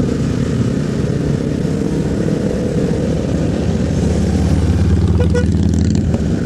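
Motorcycle engines running at low speed in slow traffic, with a steadier, stronger engine note from about four seconds in that drops away just before the end.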